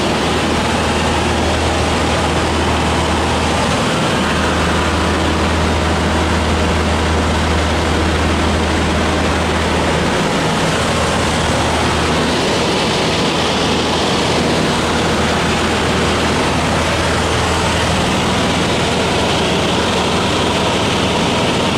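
Cabin noise of a Cessna 150 in flight: the steady low drone of its four-cylinder Continental O-200 engine and propeller under a constant rush of air.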